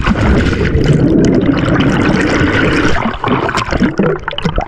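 Loud rushing, splashing river water, steady, then easing off in the last second or so.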